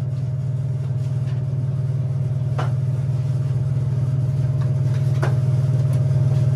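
Steady low machine hum with a fainter steady whine above it, and two short sharp clicks about two and a half and five seconds in.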